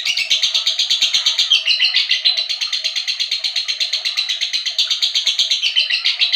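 Lovebird singing in a long, unbroken run of rapid, high chirps.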